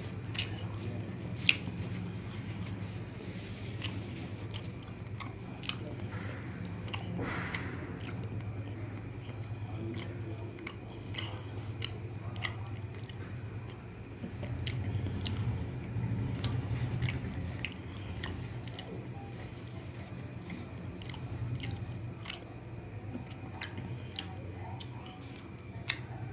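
Close-miked mouth chewing: wet clicks and lip smacks scattered throughout, the sharpest about a second and a half in, over a steady low hum.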